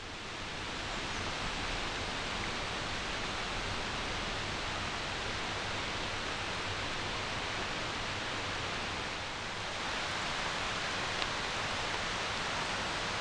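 Steady rain falling on the forest, a constant hiss that fades in at the start.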